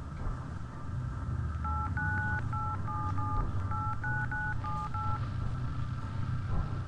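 Mobile phone keypad tones as a number is dialed: about ten short dual-tone beeps in quick, slightly uneven succession, over a low steady hum.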